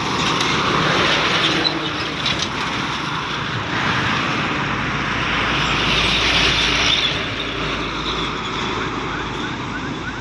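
Road traffic passing close: a Hino box truck goes by, then motorcycles and a dump truck. The tyre and engine noise swells about a second in and again around six to seven seconds, with a low rumble in between.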